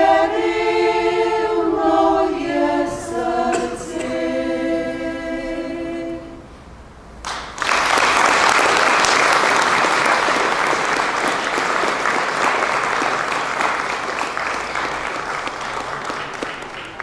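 Women's choir singing a cappella in close harmony, drawing out the last line of a Slovenian folk song and holding the final chord until about six seconds in. About a second later, applause starts and runs on, slowly fading near the end.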